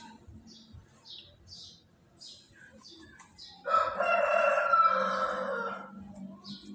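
A rooster crowing once, a loud call of a little over two seconds starting about three and a half seconds in.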